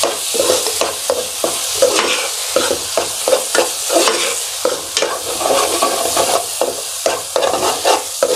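Metal spoon stirring and scraping a thick spice masala around a non-stick kadai in repeated strokes, the masala sizzling in oil as freshly added chilli powder and coriander powder fry in it.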